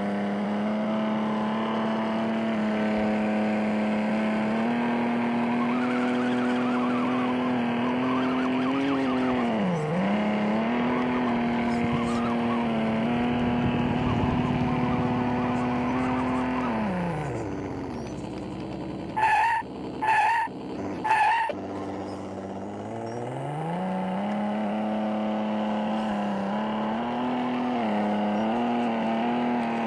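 Off-road RC car's electric motor whining at a steady pitch. The pitch dips briefly under load, winds down about halfway through, then spins back up near the end. Three short, loud bursts come while the motor is slowed.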